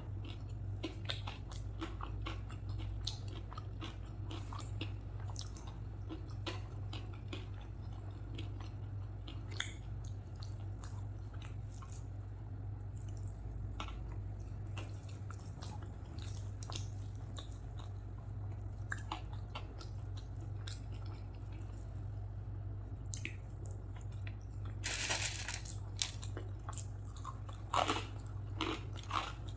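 Close-miked chewing and biting while eating rice with curry and pickle: a continuous run of wet mouth clicks and crunches over a steady low hum, with a louder burst of noise about 25 seconds in.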